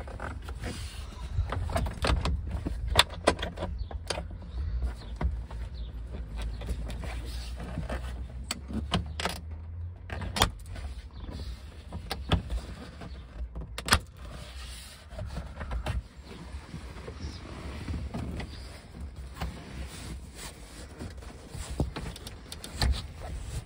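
Hands working the soft-top header rail and windscreen-frame latches of a 1969 MGB Roadster: scattered sharp clicks and knocks with creaking and rustling. A low rumble, likely from the phone being handled, drops away about ten seconds in.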